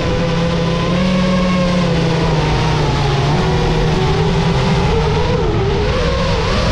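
FPV quadcopter's brushless motors and propellers whining steadily, the pitch drifting down a little midway and wavering up and down near the end as the throttle changes.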